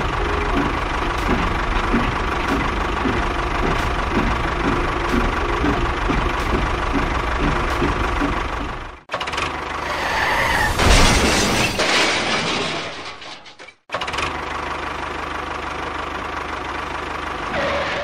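Steady engine-like running of a miniature model tractor, with a regular low tick. It cuts off abruptly about nine seconds in, a louder, noisier passage follows, and after a second abrupt cut near fourteen seconds the steady running returns.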